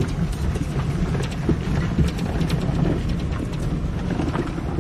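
A vehicle driving on a rough dirt road, heard inside the cabin: a steady low engine and road rumble with frequent small rattles and knocks.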